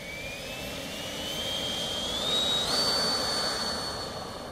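HSD Skysword RC jet's electric ducted fan spooling up for its takeoff run: a rising whine that climbs steadily, steps up to full power a little under three seconds in and holds there. It is loudest around that moment and fades as the jet rolls away.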